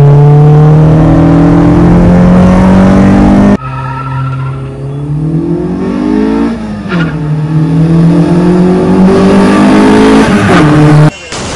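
Honda Civic's four-cylinder engine accelerating hard, its note climbing steadily, heard first from inside the cabin. After a cut it is heard from the street as the car comes up the road, the pitch rising, dropping sharply about seven seconds in, then climbing again.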